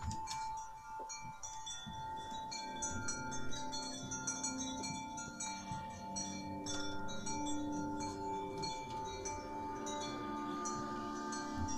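Ambient sound-art performance: a steady held tone under a shimmer of chime-like tinkling and ringing tones, with a lower drone swelling in after a few seconds.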